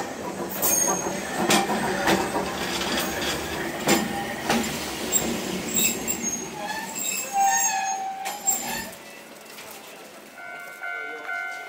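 Hankai Tramway 351-type tram rolling in over pointwork, its wheels clattering over rail joints and crossings with short wheel squeals, the running noise stopping about nine seconds in as it halts at the platform. A steady ringing tone starts near the end.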